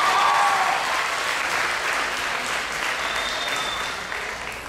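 Audience applauding, with a few voices shouting at the start. The clapping is loudest at first and gradually dies down near the end.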